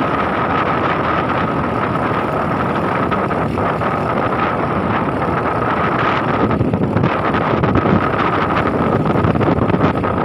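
Motor vehicle running steadily while moving along a road, with a steady high whine over a rough rushing noise that grows a little louder in the second half.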